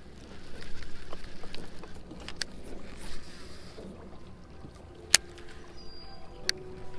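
Rod and reel being handled in a small fishing boat: three sharp clicks over low background noise.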